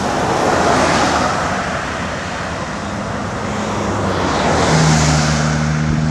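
Motorway traffic passing at speed: a lorry goes by about a second in and another vehicle swells past about five seconds in, with a steady low engine hum from about three seconds on.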